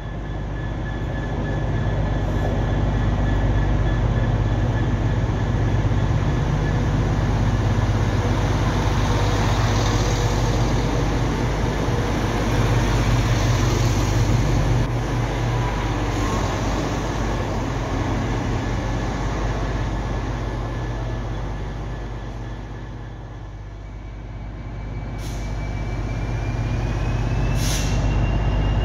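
A DB Class 66 diesel locomotive's two-stroke EMD V12 engine runs with a heavy, steady low hum. A diesel multiple unit passes close by through the middle, and a thin whine rises in pitch near the end.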